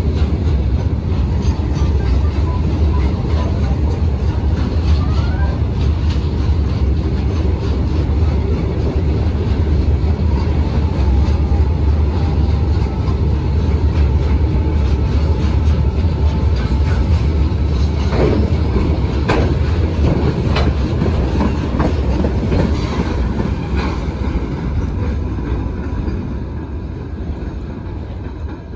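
Freight train running past: a heavy low rumble of the wagons with a fast clatter of wheels over the rail joints. There are a few sharper knocks in the second half, and the sound fades near the end.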